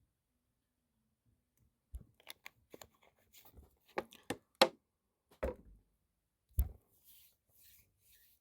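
Scattered clicks and light knocks, a few with a dull thump, starting about two seconds in.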